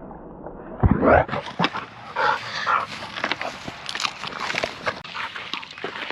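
A dog whimpering in short calls, one about a second in and a couple more around two seconds in, followed by scattered small clicks and rustling.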